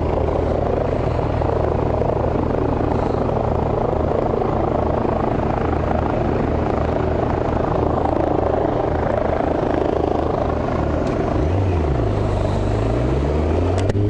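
A loud, steady helicopter-like drone and chopping over a motorcycle engine, with the engine's pitch rising and falling in the last few seconds.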